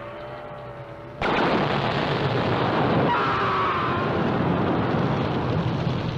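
A ringing tone fades, then about a second in a sudden loud blast sets off a steady roar of rushing noise, like an explosion followed by a fire; a brief wavering higher tone rises over the roar about three seconds in.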